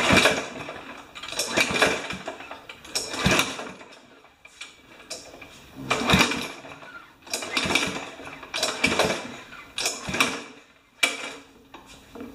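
Repeated pulls on the recoil starter cord of a Remington mower's Powermore engine, about eight sharp whirring strokes a second or so apart, without the engine catching. The owner suspects the engine is damaged inside after the blade struck something hard.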